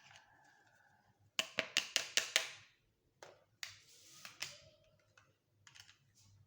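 Small plastic pieces of a miniature toy kitchen playset being handled: a quick run of five sharp clicks about a second and a half in, then a short rustle and a few lighter taps.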